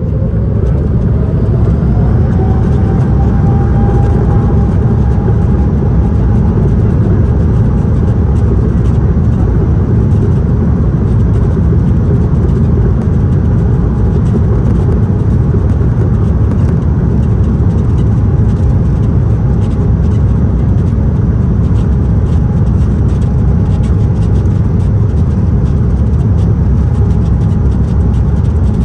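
An Airbus A330-900neo's Rolls-Royce Trent 7000 turbofans spooling up to takeoff thrust, heard from inside the cabin: a whine rises over the first few seconds and then holds steady over a heavy, even rumble through the takeoff roll.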